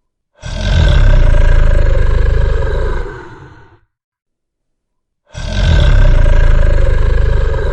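Fantasy dragon roar sound effect: two long, deep roars of about three seconds each, the second starting about five seconds in after a short silence.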